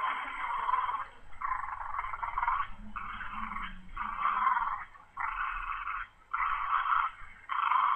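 Schnauzers growling in play during a tug-of-war: a run of growls, each about a second long with short breaks between them.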